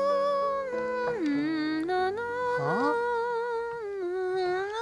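A wordless hummed melody of long held notes that slide up and down in pitch, over soft background music.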